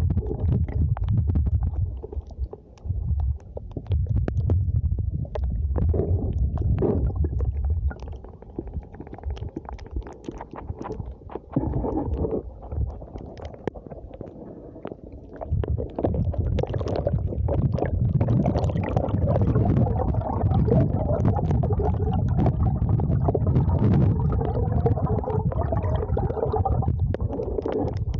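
Muffled water rumbling and sloshing against a camera lowered through a hole under the ice, among slush, with scattered clicks and knocks. It drops back for several seconds a third of the way in, then swells again.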